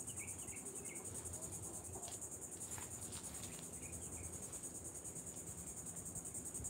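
Insects trilling in a steady, unbroken, high-pitched buzz, with a few faint short chirps in the first second.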